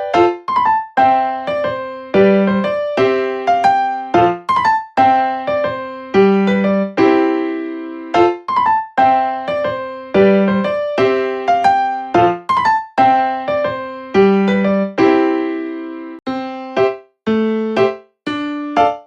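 Background music: a gentle electric-piano melody of single struck notes that ring and fade, about two a second, with brief pauses between phrases near the end.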